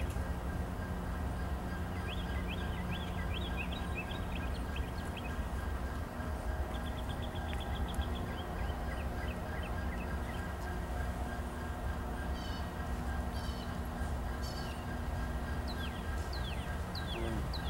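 Diesel locomotive idling in the distance with a low steady rumble, while small birds chirp in quick runs of short notes, including a rapid trill about seven seconds in and more chirping near the end.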